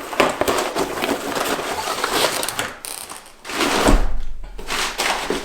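Handling noise from unpacking brake parts: rustling packaging and small knocks, with a heavier thump about four seconds in.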